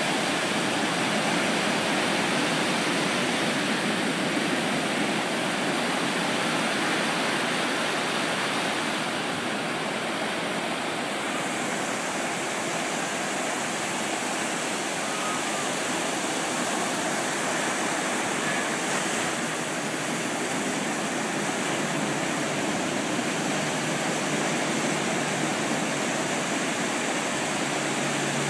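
Ocean surf: waves breaking and foam washing up the sand in a steady, unbroken noise.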